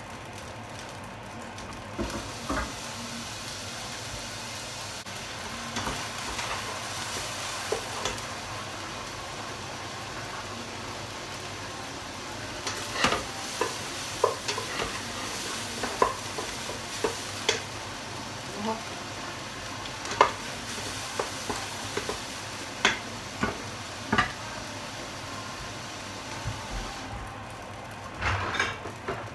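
Rice being stir-fried in a stainless-steel pot: a steady sizzle, with a metal spatula scraping and clinking against the pot, the knocks coming thick in the middle part. Near the end, a few louder knocks as the fridge door is opened.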